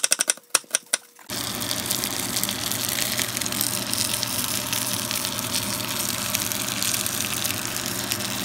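A chef's knife chopping a red onion fast on a wooden cutting board, a quick run of sharp taps. About a second in, this gives way to the steady sizzle of panko-breaded fish frying in butter in a cast iron pan.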